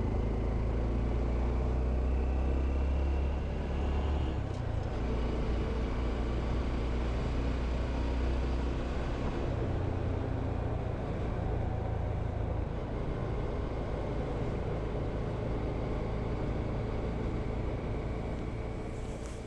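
Honda CT125 Hunter Cub's single-cylinder engine running steadily on the move, a low rumble that eases off near the end.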